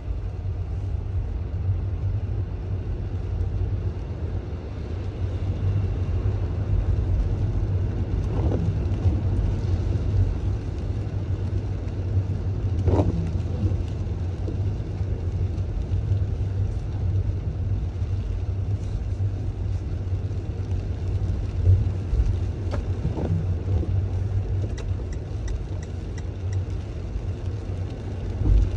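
Steady low rumble of a car driving on wet streets, heard from inside the cabin: engine and tyre road noise, with a few faint brief knocks.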